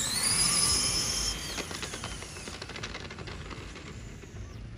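Two RC drag cars' electric motors whining, rising steeply in pitch as they launch down the strip, then cutting off about a second and a half in. A run of faint clicks and rattles follows.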